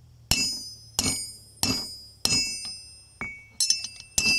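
Hammer lightly tapping the steel body of an adjustable wrench on an anvil, about seven taps roughly every half second, each giving a bright metallic ring that dies away. The metal is being peened tighter around the jaw slot to take the slop out of the moving jaw.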